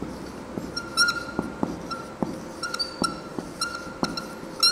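Marker pen squeaking on a whiteboard as words are written, a run of short squeaks about two or three a second, with light taps of the tip between strokes.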